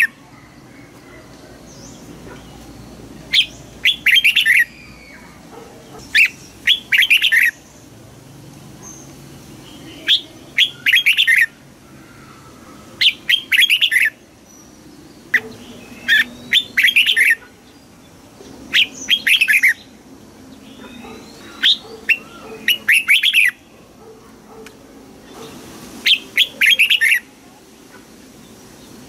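Red-whiskered bulbul song: short, bright chirping phrases of about a second each, repeated roughly every three seconds.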